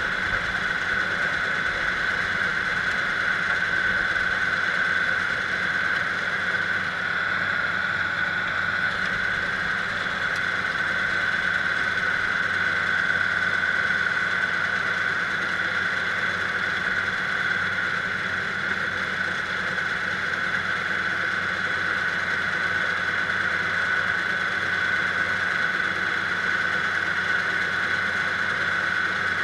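Kubota diesel engine running steadily under snow-clearing work, with a steady high whine over the engine note.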